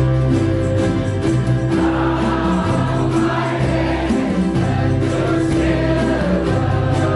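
A large ukulele ensemble strumming together while a group of voices sings in unison, over held bass notes that change every second or two.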